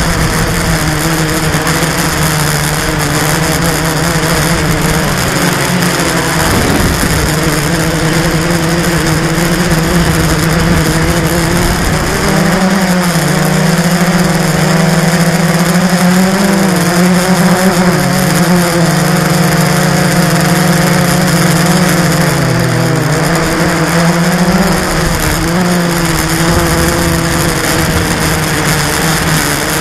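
Blade 350 QX quadcopter's brushless motors and propellers whining steadily in flight, heard close up from the camera mounted on the drone. The pitch steps up about twelve seconds in and then wavers up and down as the motors change speed.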